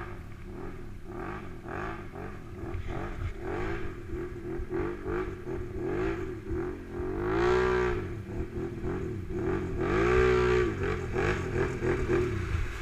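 ATV engines idling with repeated short throttle blips, the pitch sweeping up and down again and again, and two longer, louder revs about halfway and near the end.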